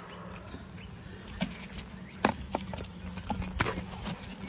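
Footsteps with scattered light knocks and clicks, over a steady low hum.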